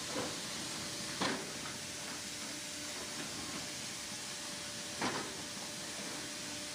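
Mucking loader working: a steady hissing machine noise with a faint hum, broken three times by short sharp knocks as its bucket digs into loose rock.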